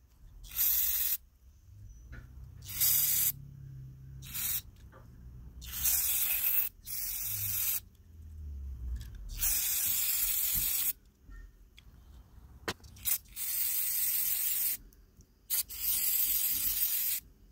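Aerosol carburetor cleaner sprayed in about ten separate hissing bursts, most short and one near the middle lasting about three seconds, washing out a lawnmower carburetor.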